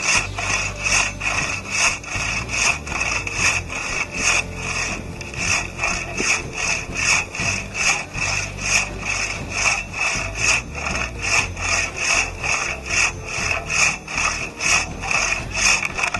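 Handsaw cutting through a fallen tree branch: a steady, even rhythm of back-and-forth rasping strokes through the wood.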